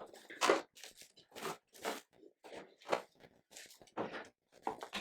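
A string of about ten short, irregular crunches and knocks as the snowblower is worked free of its wooden shipping crate and packing.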